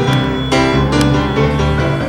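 Background music led by a keyboard playing sustained chords over a bass line, with notes struck about twice a second.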